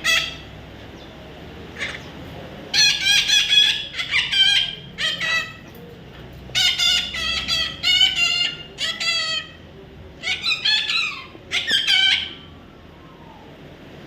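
A parrot calling loudly in quick runs of repeated squawks, in three bouts with short pauses between them.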